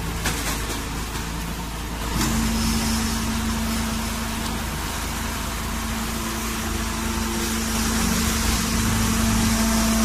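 Hydraulic straw baling press running, its motor and pump making a steady machine noise; about two seconds in a steady hum sets in and the sound grows a little louder.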